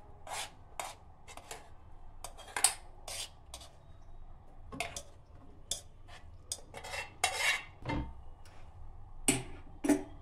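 A spoon clinking and scraping against a cooking pan in a run of short, irregular knocks as cooked Maggi noodles are served out into a dish.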